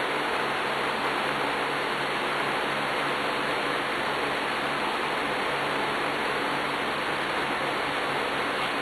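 Steady, even hiss of background noise with a faint low hum underneath. There are no distinct knocks, yelps or other separate sounds.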